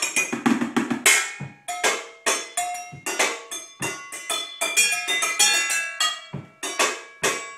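Butter knives drumming quick rhythmic runs on metal pots, pans and bowls, each hit ringing briefly with a clear metallic tone.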